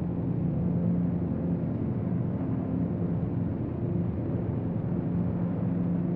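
A steady low drone with several faint held tones underneath.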